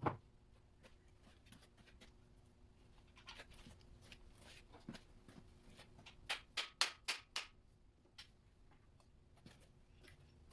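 Hand tools and metal engine parts being handled on a bench: a sharp knock at the start, scattered light clicks, then a quick run of about six sharp metallic clicks a little past halfway.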